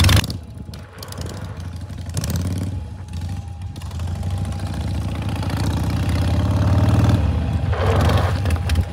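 2006 Harley-Davidson Sportster's V-twin engine, with a sharp rev right at the start, then pulling away with its note rising steadily for several seconds as the bike gains speed. The note drops about seven seconds in as the throttle is rolled off, then the engine keeps running.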